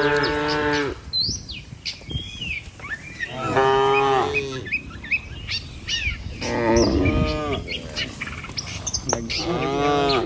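Cattle mooing. One long moo ends about a second in, then three more follow about three seconds apart, with small birds chirping in between.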